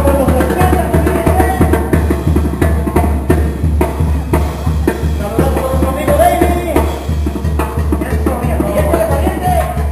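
Live banda brass-band music: a steady pulsing low beat of tuba and drum under trumpet and trombone melody lines.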